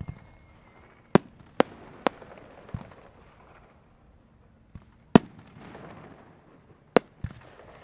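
Aerial fireworks bursting overhead: three sharp bangs in quick succession about a second in, then louder single bangs near five and seven seconds, with fainter pops between. A crackling haze follows the bursts.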